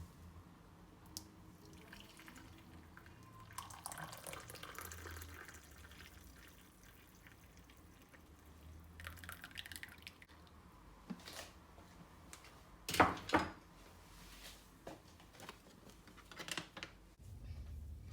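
Liquid pouring and dripping, with scattered clinks and knocks of kitchenware; the loudest is a sharp double knock about two thirds of the way through.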